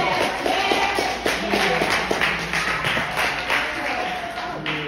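A small group of people clapping their hands, with voices over the claps. The claps fade out near the end.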